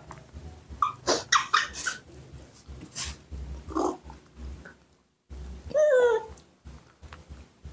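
Young macaques calling: a run of short, high squeals about a second in, a few more calls in the middle, and a louder arching cry about six seconds in.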